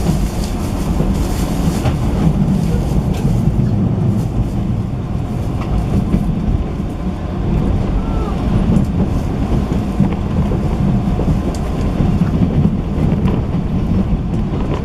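Steady low rumble of a 185 series electric multiple unit running, heard from inside a motor car, with faint scattered clicks from the wheels and track.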